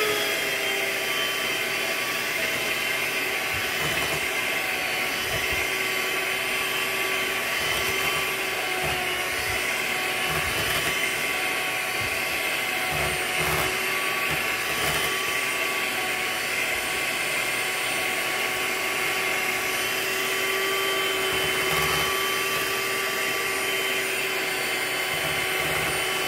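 Electric hand mixer running with a steady motor whine, its beaters whipping a thick cream-cheese cheesecake filling.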